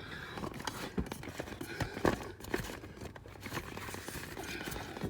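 Irregular clicks and knocks of hands working a small air hose into the fitting of a truck seat's air bag, with one sharper knock about two seconds in.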